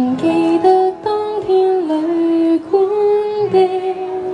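A woman singing a slow Cantonese ballad live into a microphone, holding long notes that step from pitch to pitch, over her own acoustic guitar.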